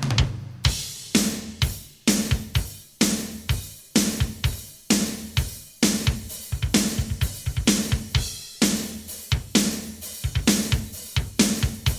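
A rock drum kit comes in abruptly and plays a steady, driving beat of bass drum, snare, hi-hat and crash cymbals, with a low bass line under it: the start of a hard-rock track.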